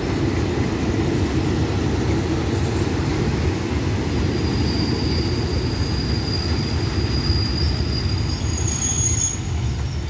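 Passenger coaches of rapid train 133 rolling past on the rails, a steady low rumble of wheels on track. A thin, steady high wheel squeal rises over it about four seconds in and fades near the end.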